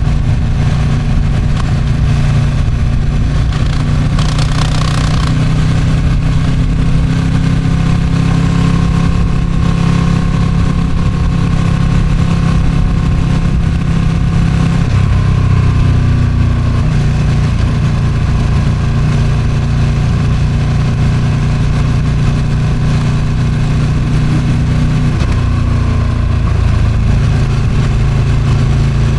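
Ducati Streetfighter V2's 955 cc Superquadro V-twin on its stock exhaust, running steadily at cruising speed. The engine note shifts around midway and again near the end. A brief burst of wind hiss comes about four seconds in.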